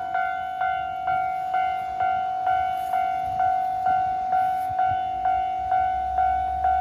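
Japanese level-crossing warning bell ringing at an even pace of about two strikes a second, each strike a bright ringing tone: the crossing is closed for an approaching train. A low rumble comes in near the end.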